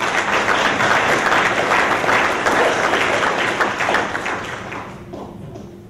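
Audience applauding, many hands clapping at once, strong for about four seconds and then dying away near the end.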